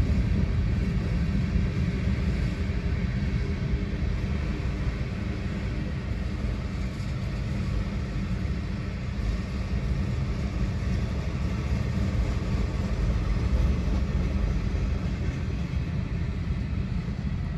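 Freight train cars (boxcars and an autorack) rolling past, a steady low rumble of steel wheels on rail, heard from inside a car cabin.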